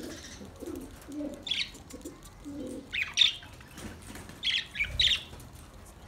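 Budgerigars in a flock chirping: a few short, sharp chirps, loudest about three and five seconds in. Low, soft repeated calls run underneath through the first half.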